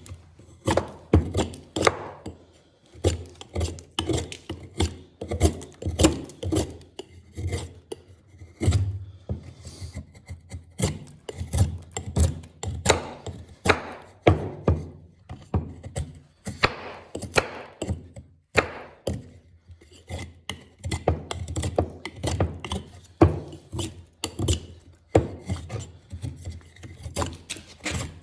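Hand-made 1075 steel knife whittling wood: a long run of short scraping shaving strokes, roughly two a second.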